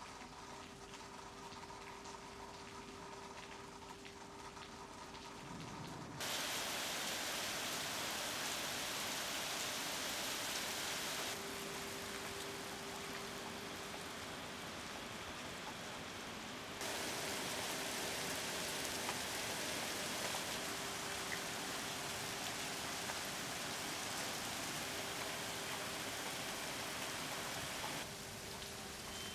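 Small hail and rain falling on wet pavement, a steady dense hiss that jumps louder about six seconds in and then steps abruptly softer and louder a few more times.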